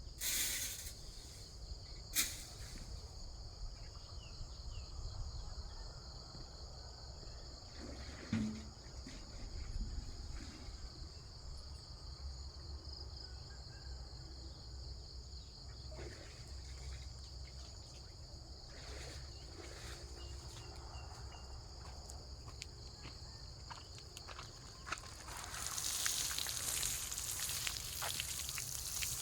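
Steady high-pitched drone of crickets and other insects, broken by a few sharp knocks. About 25 seconds in, a louder hiss of water spraying starts, from watering the cabbages.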